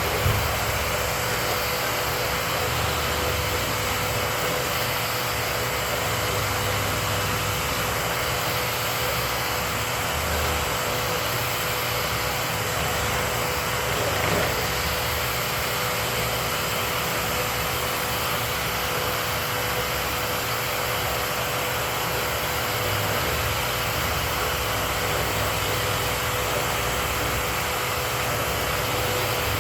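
Dust-collection vacuum running steadily: a constant rush of air over a steady motor hum, with a small knock just after the start.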